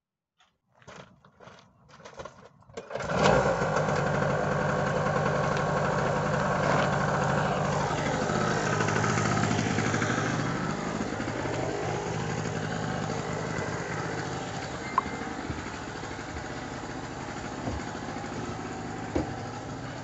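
Portable generator engine starting suddenly about three seconds in, after a few faint scuffs, then running steadily.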